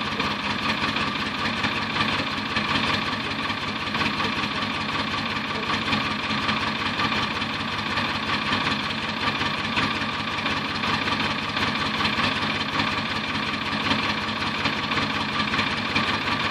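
Star 200 truck's six-cylinder diesel engine idling steadily, cold and still warming up minutes after a −10 °C start, while blowing heavy exhaust smoke.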